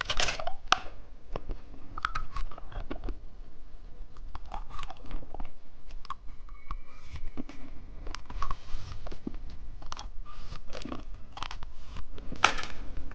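Close-up mouth sounds of watermelon bubble gum being bitten and chewed, with irregular small crunches.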